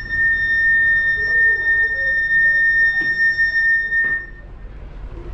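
A loud, steady, high-pitched whistling tone at the sliding glass doors to the open deck, cutting off about four seconds in as the doors stand open. A quieter rushing noise follows.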